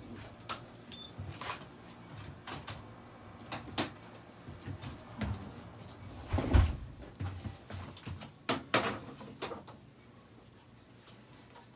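Irregular knocks, clicks and rustles of hands and a vinyl positioning pad handled on a veterinary X-ray table while a cat is held in place, the loudest thump about six and a half seconds in. A faint low hum runs underneath.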